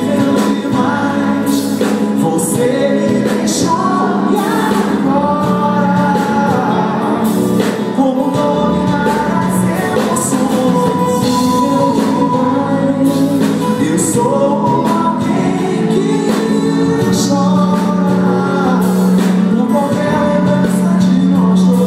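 Live band playing a Brazilian pop ballad with singing over it: acoustic and electric guitars, keyboard and drum kit, loud and steady throughout.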